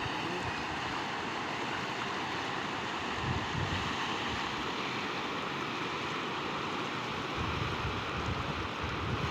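Steady rushing of floodwater, with wind buffeting the microphone now and then.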